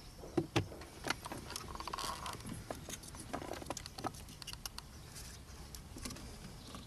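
Scattered small clicks and light knocks from hand work on a car's ignition switch, the plastic switch body and its parts being handled and fitted.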